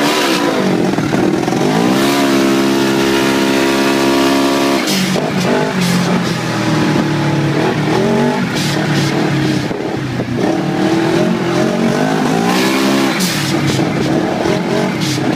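Polaris RZR 900 Turbo side-by-side's engine under hard acceleration: the revs climb and hold at a steady high pitch for a few seconds, drop off about five seconds in, then rise again near the end. A few short hissing bursts come through on top of the engine.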